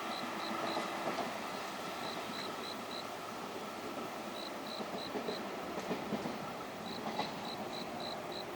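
Freight wagons of a container train rolling past over the rails, a steady rumble of wheels. A level-crossing warning bell dings about three to four times a second in short runs over it.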